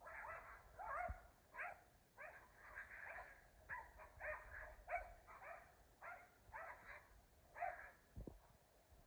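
Dog giving a rapid run of short, fairly faint barks and yips, about two a second.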